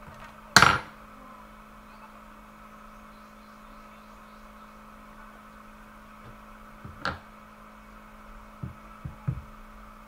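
Steady electrical hum, with a loud sharp click about half a second in, another about seven seconds in, and a few soft thumps near the end.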